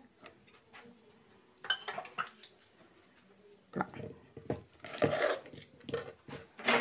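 Steel spoon scraping and clinking against the side of an aluminium pot while mashing and mixing thick cooked rice-flour dough. There is a short spell of strokes about two seconds in, then a denser run of strokes through the second half.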